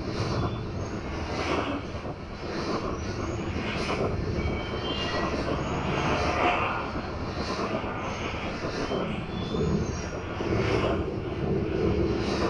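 Industrial machine soundscape: a steady grinding, rumbling mechanical noise, like rolling rail stock, with short high metallic squeals scattered throughout.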